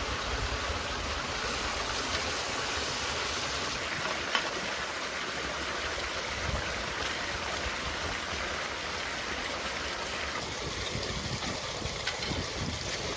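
A stream flowing steadily with an even rushing sound, with a few faint ticks and one sharp click about four seconds in.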